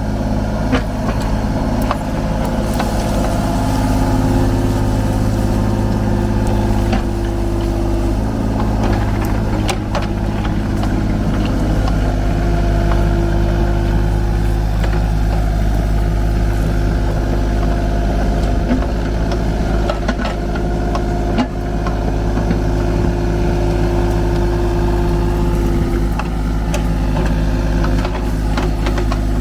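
Kubota U35-4 mini excavator's diesel engine running steadily while it works. A higher tone rises in and out in stretches, and there are a few knocks, the loudest about 21 seconds in.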